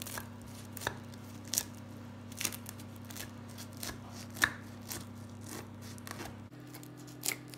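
A knife slicing through the crisp, pan-fried yufka crust of a börek, the layers giving scattered sharp crackles and crunches at irregular moments. A faint steady low hum sits underneath.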